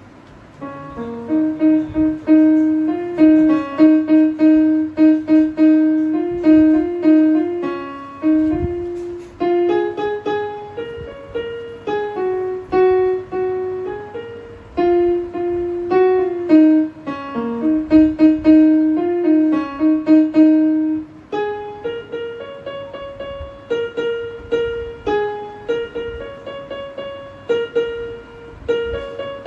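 Electronic keyboard played by hand, a prayer tune picked out as a melody of held notes, one after another.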